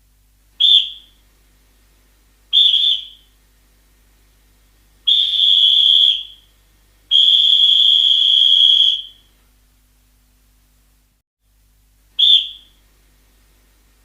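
Referee's whistle blown five times: two short blasts, then two long blasts of about one and a half and two seconds, then one more short blast near the end. Each blast holds one high, steady pitch.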